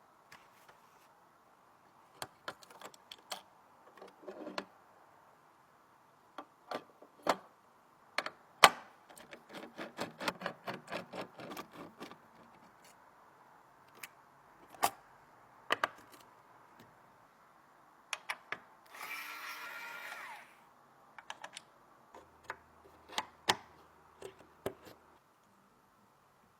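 Scattered clicks and taps of computer parts being handled and fitted during a PC build, with a quick run of clicks about ten seconds in and a short whirring sound, rising slightly in pitch, near the twenty-second mark.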